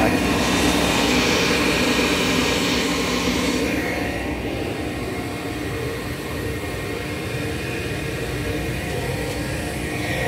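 Car wash central vacuum system running: the Sonny's blower and separator unit give a steady, loud mechanical drone with a whine in it. It is a little fainter from about four seconds in.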